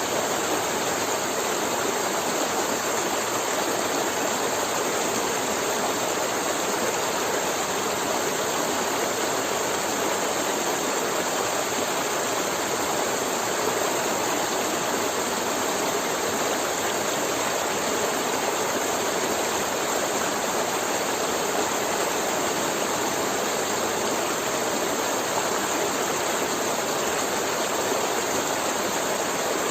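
River water flowing and gurgling over rocks in a steady, unbroken rush.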